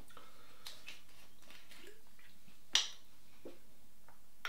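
Bottle and metal measuring jigger being handled as advocaat is measured out: a few faint clicks, with one sharp click about three-quarters of the way through, over quiet room tone.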